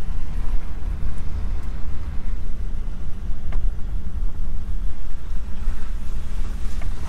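Cab noise of a Jeep driving on a dirt track: a steady low rumble of engine and tyres heard from inside the cab.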